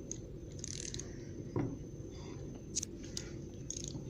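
Socket and ratchet being handled and fitted on the center bolt of an AC compressor clutch: a scrape, a thud, then several short metallic clicks.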